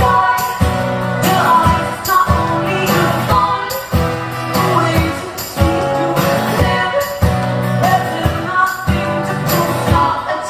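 Live music from a guitar-and-vocal duo playing a song's opening, with a steady strummed beat.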